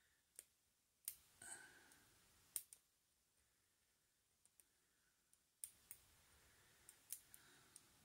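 Faint, irregular metallic clicks of a lock pick working the pins of a 30 mm brass Yale five-pin padlock held under tension, about a dozen in all with a short lull in the middle.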